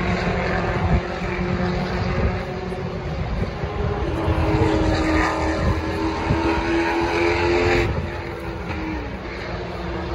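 Distant engine drone, a steady tone that falls away about eight seconds in and dips in pitch shortly after, over a constant low rumble.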